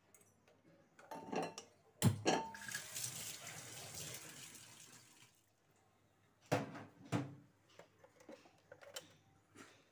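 Several sharp knocks as eggs are cracked against the edge of a knife over a small bowl. Between the knocks there is a few seconds of splashing hiss that fades away.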